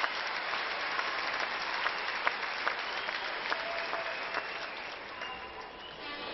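Large crowd applauding, a dense patter of clapping with a few short calls above it, dying down near the end.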